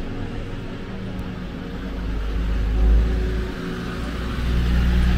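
A motor vehicle passing close by on a city street: a low engine and road rumble that swells, eases briefly, then grows louder with rising tyre hiss near the end.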